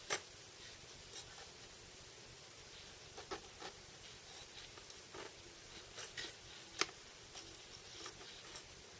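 Scattered sharp clicks and ticks at irregular intervals over a faint steady hiss, the loudest just after the start and again about seven seconds in.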